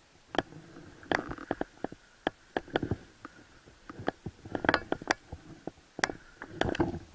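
Irregular clicks, knocks and scuffs of footsteps and handled gear on brick and stone rubble close to the camera, in uneven clusters with no steady rhythm.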